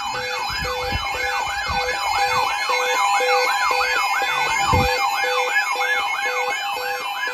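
Electronic siren in a fast yelp, its pitch rising and falling about three times a second over a steady tone and short low beeps about twice a second, with a few low thumps, the strongest nearly five seconds in.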